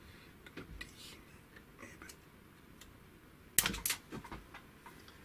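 Steel C-type piston-pin circlip being pressed by hand into its groove in a BFA piston: light metallic ticks, then a sharp double click about three and a half seconds in as the clip's ends snap into the seat.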